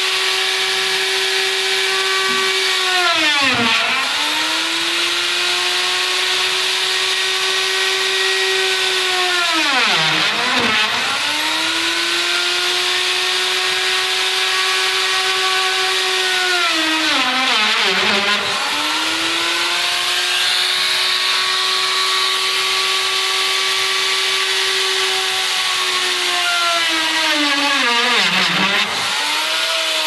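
Handheld electric router whining at full speed as it cuts a lock mortise into the edge of a wooden door. Four times the pitch drops sharply and climbs back as the bit bites into the wood and the motor slows under load. The motor stops right at the end.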